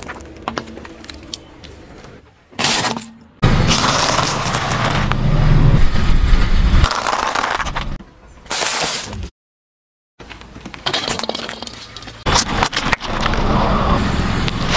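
Car tyres rolling slowly over objects on pavement and crushing them: crunching and cracking with tyre grit on the asphalt, across several short cut-together clips. The loudest, longest crushing comes in the first half, and there is a brief gap of silence about two thirds through.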